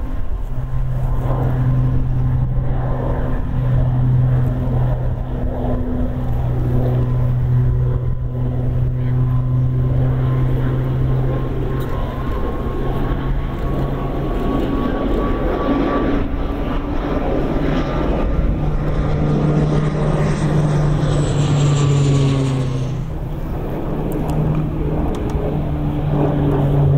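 CASA C-295M twin-turboprop transport flying past, its two Pratt & Whitney PW127G engines and propellers giving a steady low drone that swells and fades in a slow beat. A thin high turbine whine glides downward about twenty seconds in, and the sound dips briefly before building again as the aircraft climbs away.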